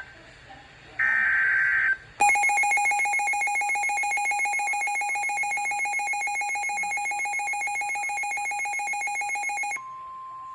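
The last burst of a NOAA Weather Radio SAME digital alert header, a second of warbling data tones, encoding a severe thunderstorm warning. It is followed by a loud, rapidly pulsing alert alarm for about seven and a half seconds. Near the end this gives way to the steady single-pitched NOAA weather warning tone.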